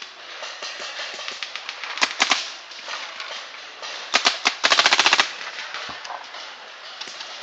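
Paintball markers firing. A close marker shoots two short strings of a few shots each, then a fast burst of about half a second, the loudest part. Fainter pops from other players' markers sound throughout.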